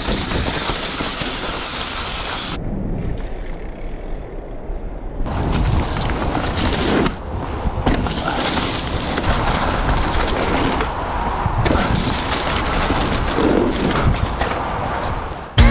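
Mountain bike riding on a trail: tyres rolling over dirt with rattling, and wind buffeting the microphone. There are short clips, with a muffled stretch of a couple of seconds near the start.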